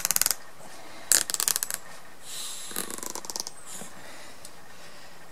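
Nylon cable ties being pulled tight, each giving a quick ratcheting zip: one right at the start and another about a second in, then a slower, softer rasp near the three-second mark.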